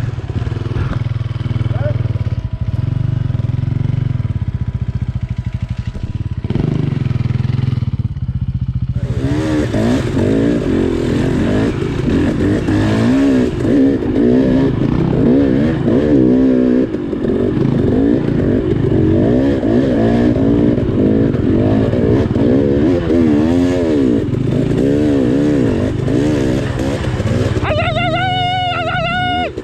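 Two-stroke 300 cc enduro dirt bike engine. It runs at low, fairly steady revs for the first several seconds, then from about nine seconds in the bike is ridden along the trail with the revs rising and falling constantly.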